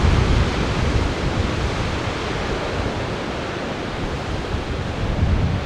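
Heavy surf breaking against a rocky shore: a continuous rush of waves and foam, with wind rumbling on the microphone.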